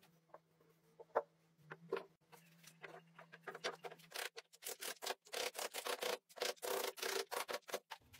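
A few sharp knocks of wooden chair parts being set in place, then a fast run of rubbing and scraping strokes on the wooden frame that grows louder from about three seconds in.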